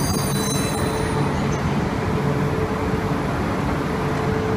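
E4 series Max double-decker Shinkansen train coming to a stop at the platform: a faint high wheel-and-brake squeal dies away about a second in. After it comes the steady hum of the standing train's onboard equipment.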